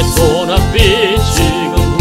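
Upbeat gospel hymn accompaniment playing: a steady drum beat under a lead melody with vibrato.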